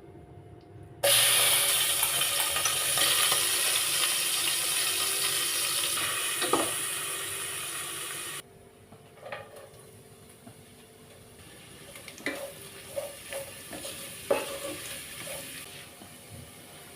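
Food sizzling in hot oil in a pan: a loud hiss that starts suddenly about a second in, eases slightly, and cuts off abruptly after about seven seconds. After it come several light clinks of a utensil against the pan.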